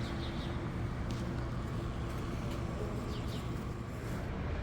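City street ambience: a steady low rumble of traffic, with a few short high chirps, one pair about three seconds in.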